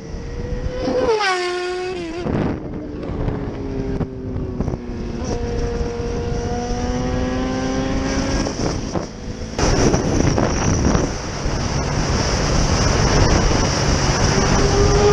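Motorcycle engine heard from the rider's seat: its pitch drops sharply about a second in, then climbs slowly and steadily as the bike accelerates, with wind rushing over the microphone. About ten seconds in the wind noise becomes much louder, and near the end another motorcycle's engine rises in pitch close by.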